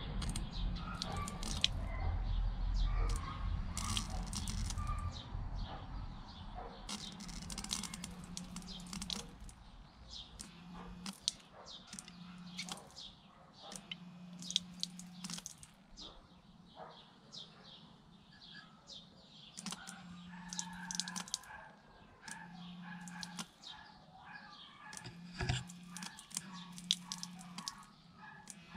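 Mini DC water pump starting and stopping in short runs of a second or two, a low hum each time, as a hand in front of its infrared sensor switches it through the relay. Birds chirp throughout, over a low rumble in the first few seconds.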